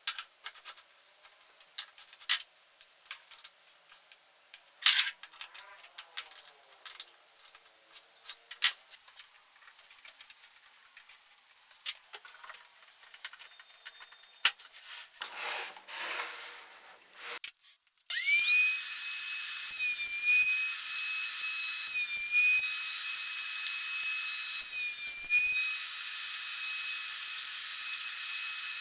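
Scattered clicks and knocks of wood and tools being handled, then about two-thirds of the way in a wood router starts and runs with a steady high whine. Its pitch dips briefly three times, as the bit takes a cut for the box joints.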